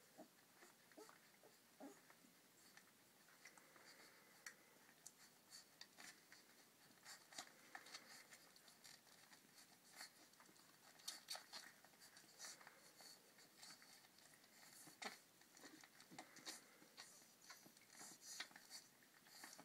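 Faint, irregular small clicks and smacks of 16-day-old borzoi puppies suckling at their mother, with light scuffling as they knead and shift against her.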